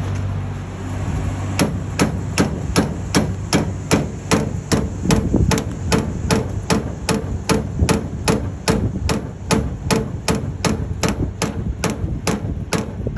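Body hammer tapping steadily on the rusted grille of a 1952 Chevy, about three light blows a second, each with a faint metallic ring, knocking the edges of a rusted-through hole level. A low steady hum underlies the first second or so before the tapping starts.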